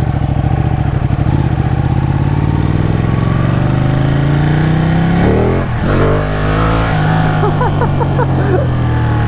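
Ducati Panigale's twin-cylinder engine under way, its pitch climbing steadily as the bike accelerates for about five seconds. It breaks off briefly, as at a gear change, then runs on at a steadier, slowly falling pitch.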